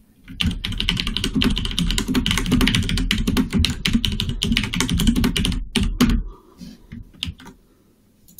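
Fast typing on a computer keyboard: a dense run of clicks and key thuds for about six seconds, then a few separate clicks before it stops.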